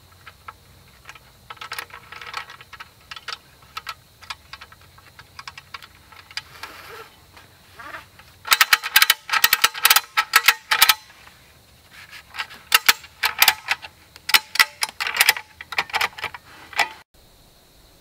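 Ratchet strap being cranked tight: fast runs of sharp metal clicks from the ratchet buckle, in two busy stretches about halfway through and in the last third, with scattered clicks and rasping of the webbing before them. The sound cuts off suddenly near the end.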